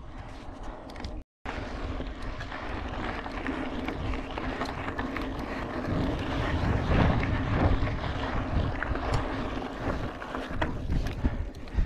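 Mountain bike riding: wind buffeting the microphone over tyre noise, with rattling clicks as the bike runs over rough ground. The sound cuts out for a moment about a second in, then grows louder and rougher from about halfway through.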